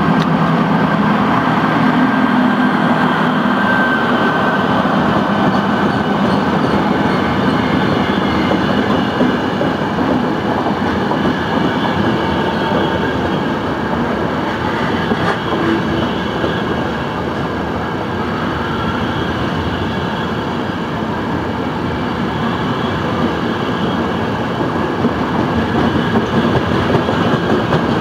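FS 'Caimano' electric locomotive and its long train of passenger and couchette coaches passing through a station: a loud, steady rumble of the train going by, with the wheels clattering over the rails.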